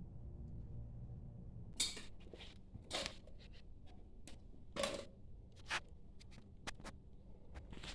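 Irregular sharp clicks and short scrapes of hand work on parts, starting about two seconds in, over a low steady hum.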